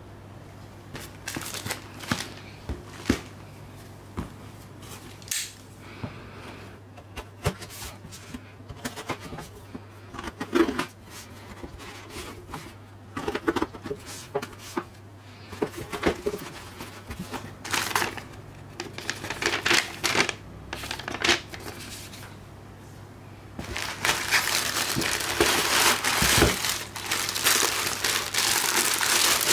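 Cardboard parcel being handled and opened: scattered taps, scrapes and rustles over a faint steady hum. About two-thirds of the way through, tissue paper wrapping starts crinkling continuously as it is pulled back.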